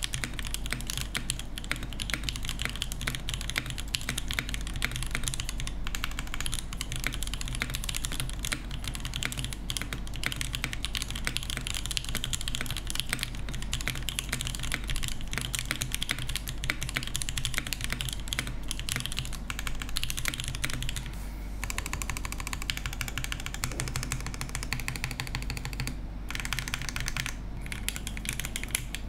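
Fast continuous typing on a Geonworks F2-84 mechanical keyboard fitted with lubed Banana Split linear switches on an aluminium plate. From about two-thirds through it slows to sparser, separate key presses.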